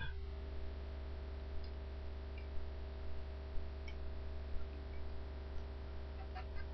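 A few scattered faint clicks of a plastic Transformers Cyclonus figure's parts and joints as it is folded by hand, over a steady electrical hum.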